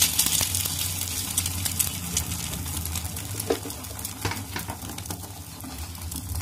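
An egg frying in oil in a small pan, sizzling with scattered crackles and pops, over a low steady hum.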